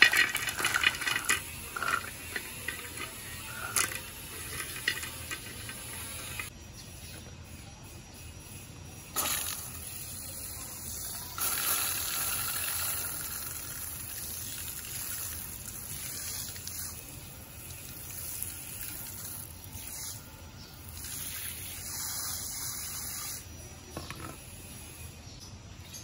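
Small pebbles clattering into a concrete birdbath bowl for the first few seconds, then a stream of water splashing into the bowl and filling it, a steady hiss that grows louder about a third of the way in.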